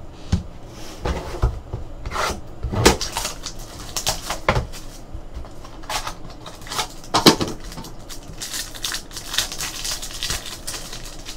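Trading card packaging being handled and opened: cardboard and wrappers rustling, with several sharp knocks and taps, the loudest about seven seconds in.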